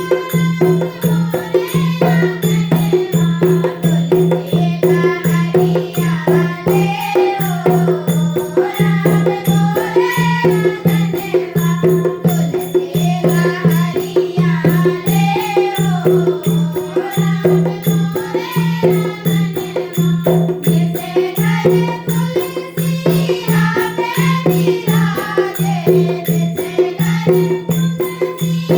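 Devotional Hindi bhajan music: a melody that glides and wavers up and down in pitch over a steady pulsing low drone, with a regular beat of hand percussion.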